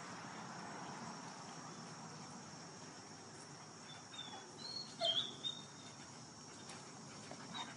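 A dog gives a few short, high-pitched whines about four to five and a half seconds in, over a faint steady outdoor background.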